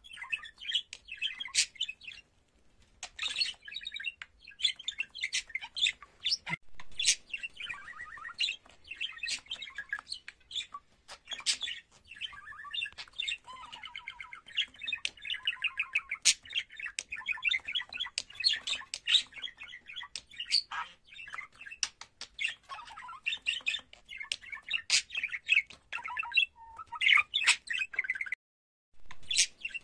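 A budgerigar warbling: a long, nearly unbroken run of chattering, twittering song full of quick chirps and sharp clicks. It breaks off briefly about two seconds in and again near the end.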